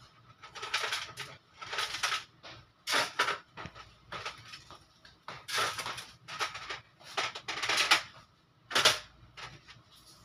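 Thin gold bangles clinking and jingling against each other in short, irregular bursts as the stack is shifted and turned in the hand.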